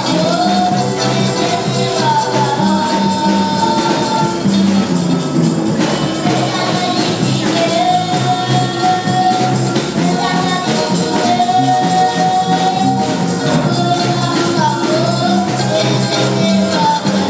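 Gospel church music with tambourines played steadily in rhythm and voices singing long, held melody lines.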